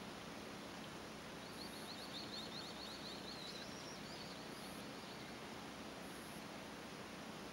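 Steady hiss of outdoor background noise. About a second and a half in, a faint high, rapid trill runs for about two seconds and ends on a few higher notes.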